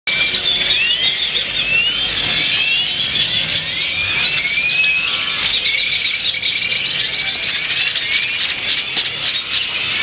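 A large flock of birds chirping loudly in the trees: a dense chorus of many overlapping short rising whistles and chirps.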